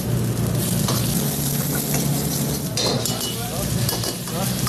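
Chopped onion and bell peppers sizzling in hot oil in a wok as they are stirred with a metal ladle, over a steady low hum. The sizzling surges briefly about three seconds in.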